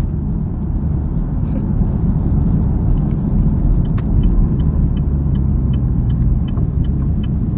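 Steady low road and engine rumble of a car driving, heard from inside the cabin. In the second half, a light, regular ticking joins it.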